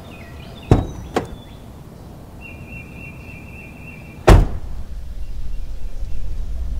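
Mercedes Sprinter van doors shutting: two sharp knocks near the start, then a steady high beep for about two seconds, then a heavy door slam. A low engine rumble starts straight after the slam and keeps running.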